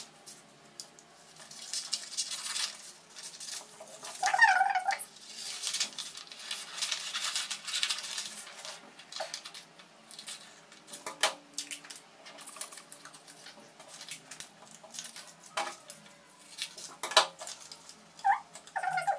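Paper pattern being cut with scissors and then handled, rustled and folded to close the darts: irregular crinkling and snipping, with scattered clicks. A brief squeaky pitched sound comes about four seconds in and again near the end.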